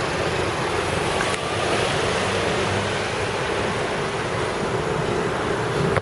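Steady road noise: the rumble of motor traffic mixed with wind rush.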